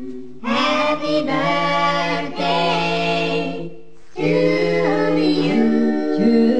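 A cappella group singing a birthday song in harmony, several voices layered with no instruments. The singing stops briefly a little before the four-second mark, then picks up again.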